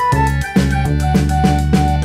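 Background music: an instrumental piece with a steady beat of short pitched notes over a bass line.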